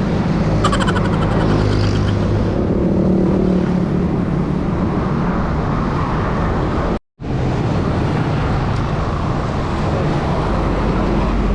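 Steady road and traffic noise with wind rumbling on the microphone of a moving bicycle's camera. The sound cuts out completely for a moment about seven seconds in.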